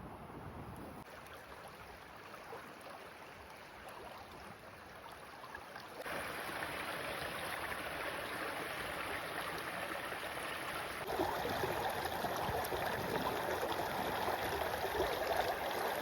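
River water flowing and rippling in a steady rush, getting louder in two sudden steps, about six and eleven seconds in.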